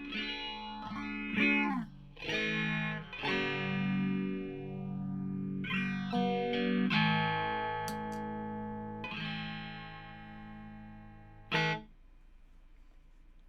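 Electric guitar played through effects: a series of struck chords left to ring, with a slow sweeping whoosh moving up and down through the tone. The playing stops about twelve seconds in, leaving faint hiss.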